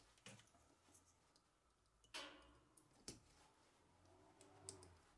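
Near silence, with a few faint clicks and taps as insulated wires are handled against a metal case; the clearest click comes about two seconds in.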